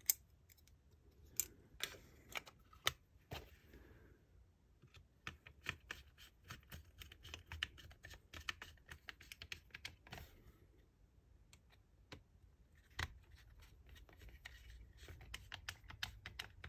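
Faint, scattered clicks and taps of the grip panels being fitted onto a Sig Sauer P226 frame as the pistol is handled, with a few sharper clicks among them.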